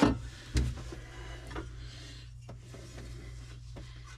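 One knock about half a second in, as a loose metal bracket is handled and set down, followed by a few faint clicks of handling over a steady low hum.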